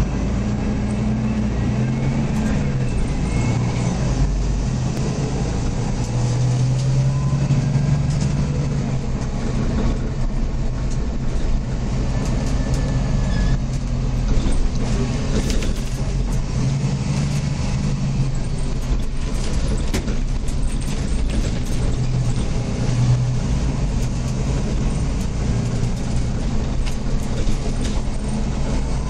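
SOR NB12 city bus heard from inside the passenger cabin while under way: the engine and drivetrain run steadily under a constant rumble, the engine note rising and falling in places.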